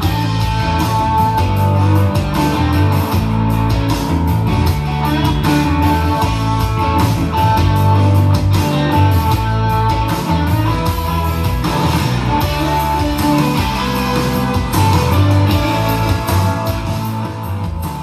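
Blues-style music with electric guitar played at full volume through a Pioneer PBM5 portable party speaker, with a heavy bass line.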